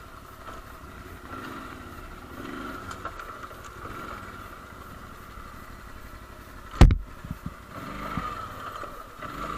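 ATV engine running at low speed with a steady hum and rumble, and one sharp, loud thump about seven seconds in, followed by a few lighter knocks.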